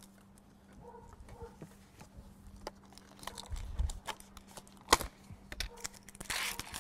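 Plastic lid being worked off a quart tub of yogurt: small scattered clicks and crinkles of plastic, a sharp snap about five seconds in as the lid comes free, then a short rustling tear near the end as the inner seal is peeled.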